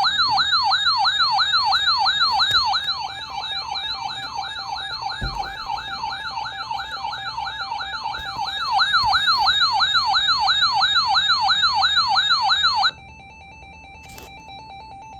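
Weather alert radio's electronic siren alarm, a fast up-and-down wail about three times a second that drops in volume for several seconds in the middle. About 13 seconds in it cuts off and a quieter steady tone takes over: the NOAA Weather Radio attention tone announcing the alert.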